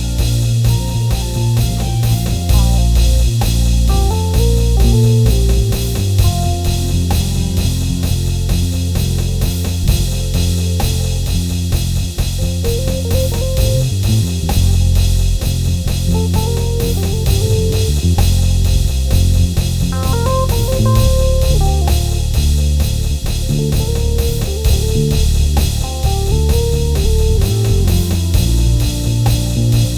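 Gospel worship music played on keyboard, with slow chord progressions and melodic runs over heavy sustained bass notes and a steady drum-kit beat.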